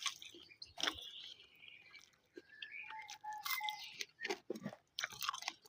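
A person chewing food close to the microphone: soft, scattered crunches and mouth clicks.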